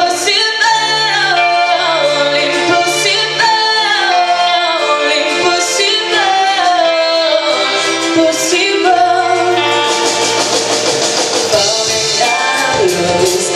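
A live pop band, with keyboard, guitars and drums, playing a ballad chorus while a singer holds long notes that slide up and down in pitch. Cymbals build up to a louder wash about ten seconds in.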